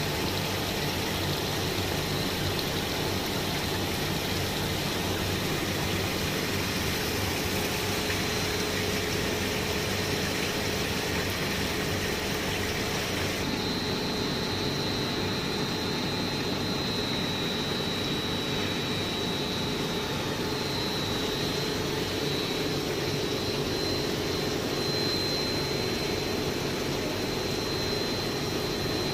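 Self-cleaning sludge dewatering screw press and its geared drive motors running, a steady machine hum under a wash of noise. A thin high whine joins about halfway through.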